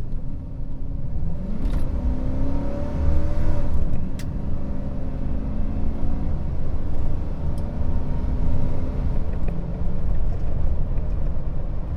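Chevy Silverado 5.3-litre V8 with its stock muffler, heard from inside the closed cabin under hard acceleration. A deep rumble, with the engine note climbing in pitch, dropping back about four seconds in, then running steadily as the truck nears 60 mph at close to 4,000 RPM.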